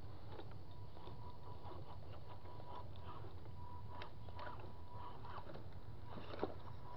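Small RC rock crawler's electric motor whining thinly on and off as it crawls over loose wooden boards, with scattered clicks and knocks of its dual tires on the wood and one sharper knock near the end, over a steady low rumble.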